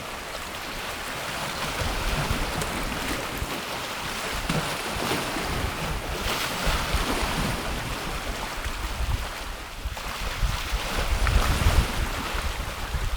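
Wind-driven waves washing onto a Lake Erie shore, the surf swelling and easing, with gusts buffeting the microphone in uneven low rumbles.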